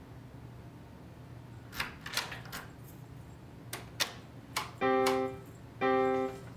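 Several sharp clicks and knocks, then a steady electronic tone from a prototype security-alarm control sounding twice, about half a second each and a second apart.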